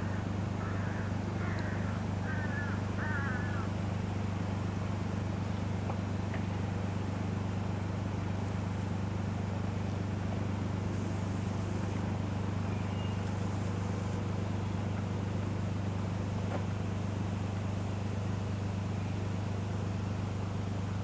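A steady low hum at an unchanging pitch runs throughout, with a small bird chirping five or six times in the first few seconds.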